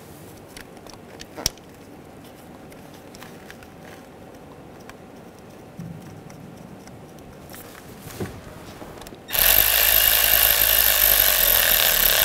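Light hand-work noises with a sharp click about a second and a half in, then a Milwaukee cordless electric ratchet runs steadily for about three seconds near the end, driving down the 10 mm hold-down bolt of an ignition coil.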